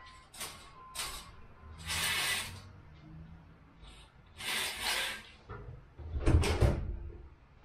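Scattered handling noises: a few light clicks, two short swishes, and a louder knocking clatter with low thumps about six seconds in.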